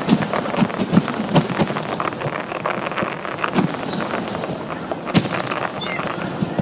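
Fireworks display: a dense run of bangs and crackling pops, with several sharp booms and the loudest about five seconds in.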